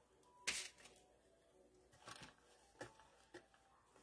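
Faint rustles and small clicks of dried greenery sprigs being handled and pressed onto a wooden craft plaque, with one sharper click about half a second in and a few softer ones after.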